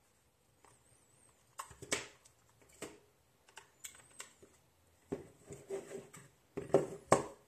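Handling sounds: a scattered series of small plastic clicks and knocks as a USB cable is plugged into a USB meter and a two-slot battery charger is picked up and set down on a wooden desk. The loudest knocks come near the end.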